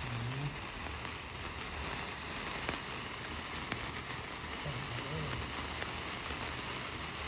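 Several sparklers burning together: a steady fizzing hiss with a few faint crackles.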